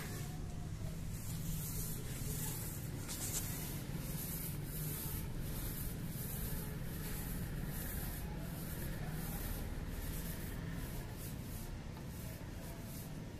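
Paint roller rolling wet floor paint onto a concrete floor: a continuous rubbing swish in repeated back-and-forth strokes, with a steady low hum underneath.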